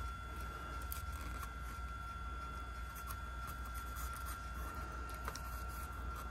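Quiet rubbing of a paper towel over a Digital 8 tape cassette's plastic shell as the dust is wiped off, with a few faint clicks of the cassette in the hands. A steady low hum and a thin high whine run underneath.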